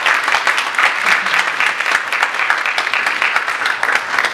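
Audience applauding, many hands clapping steadily, beginning to die down near the end.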